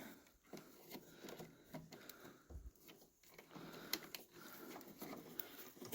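Faint handling noise from wiring being worked by hand: scattered light clicks, small knocks and rustling as a harness wire is pushed under another wire, with one soft low thud about halfway through.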